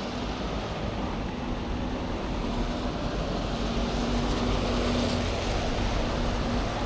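City street traffic noise: a steady rush with a faint low engine hum that grows slowly louder.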